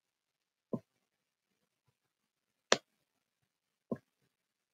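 Three short, faint clicks spread over a few seconds of otherwise near silence: computer mouse clicks while digits are drawn on a slide with the pen tool.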